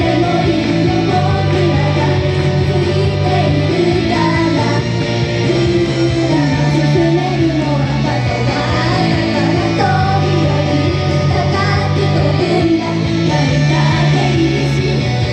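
Idol-pop song performed live, loud and steady: girls singing into handheld microphones over backing music with guitar.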